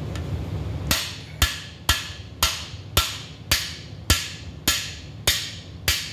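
Steady hammer strikes on a cam bearing installer's driver shaft, about two a second, each with a short metallic ring, driving a cam bearing into the cam tunnel of a Pontiac 400 engine block. The strikes begin about a second in, ten of them in all.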